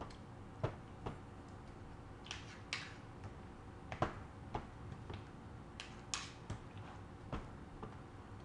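Spatula stirring creamy fruit salad in a plastic bowl: irregular knocks and short scrapes against the bowl's side as it is worked, with sharper clicks about two, four and six seconds in.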